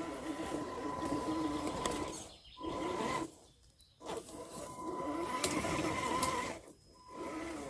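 Electric motor and geared drivetrain of an RC rock crawler whining at low throttle under load, with a steady high-pitched electronic tone over it. The throttle is let off briefly three times, with the longest pause a little after three seconds in.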